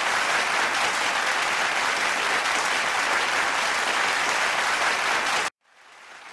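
A group of people clapping steadily, which cuts off abruptly about five and a half seconds in.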